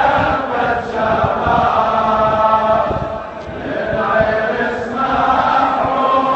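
Large crowd of men chanting together in unison, in repeated phrases: a mourning chant.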